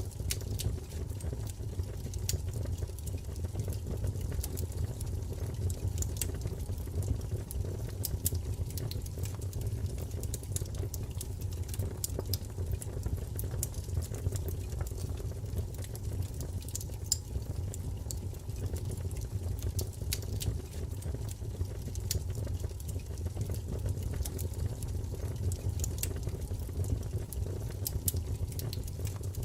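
Wood fire burning in a fireplace: a steady low rumble of flames with frequent sharp crackles and pops scattered throughout.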